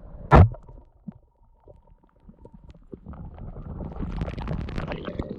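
A single shot from a submerged Glock 19X 9mm pistol: one sharp, loud report about half a second in. From about three seconds in, a low rumbling noise builds up.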